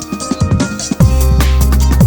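Electronic background music with drums; about a second in, a heavy bass line and fuller beat come in and the music gets louder.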